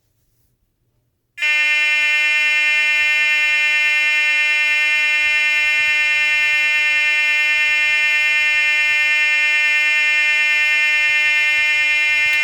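Federal Signal SLM800R high-output electronic sounder, set to its lowest volume, sounding one steady, unchanging alarm tone. The tone switches on abruptly about a second and a half in and holds at full level.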